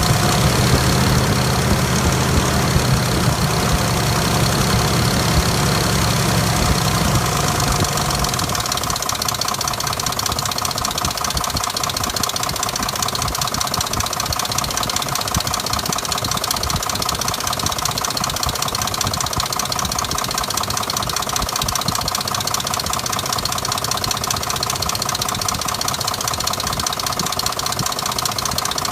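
2005 Dodge Durango engine running with a rapid, steady knocking. A deeper engine note is strong for the first eight seconds or so, then drops away while the knock continues. The cause of the knock is unknown; the engine is throwing codes P0343 and P0172.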